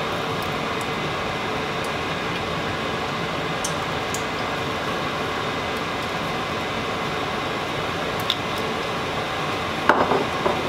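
A fan running steadily, a constant rushing noise throughout; a few faint ticks, and a short clatter near the end.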